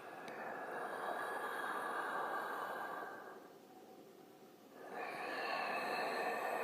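Creepy slow breathing sound effect: one long drawn breath of about three seconds, a short pause, then the next breath beginning about five seconds in.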